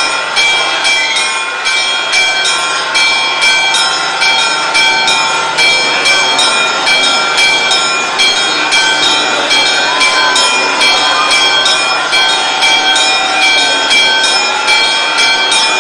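Church bells ringing rapidly, about three to four strokes a second, with many overlapping ringing tones, rung to mark the Holy Fire's descent. A crowd's voices rise faintly beneath the bells.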